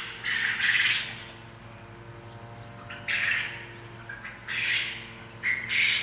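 A pen of farmed Japanese quail calling: harsh, raspy calls in separate bursts, about four of them, one at the very start and the others from about three seconds in, over a steady low hum.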